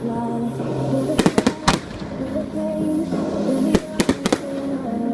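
Fireworks bursting in quick clusters of sharp bangs, a group of three or four a little after a second in, another about two seconds later, over music playing throughout.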